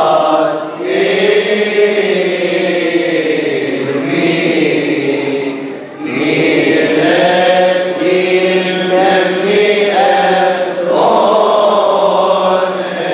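Coptic Orthodox liturgical chant sung by men's voices: long held notes that bend slowly up and down, with short breaks about a second in and again around six seconds in.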